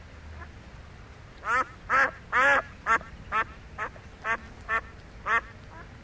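White domestic ducks quacking: a run of about nine loud quacks, roughly two a second, starting a second and a half in.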